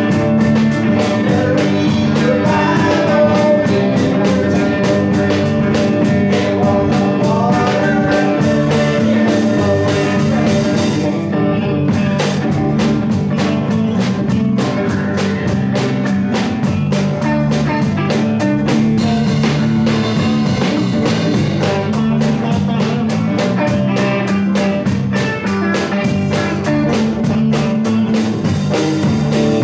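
Small live band playing a blues-rock gospel song: electric guitar, acoustic guitar, electric bass and drum kit, with a steady beat.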